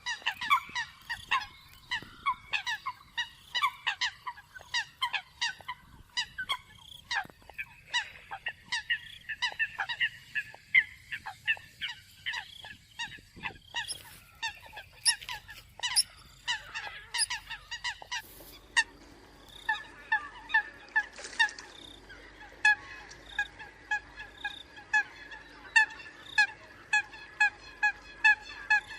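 Eurasian coots calling: a long string of short, honking notes repeated a few times a second, a lure call used to draw in coots. About eighteen seconds in, the calls settle into a steadier, more even rhythm.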